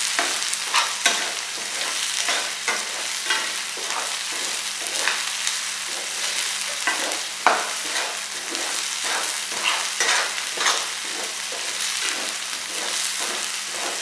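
Boiled sweet corn kernels sizzling in hot oil in a stainless steel frying pan, with a metal spoon scraping and clinking against the pan as the corn is stirred. The kernels are being sautéed until crisp.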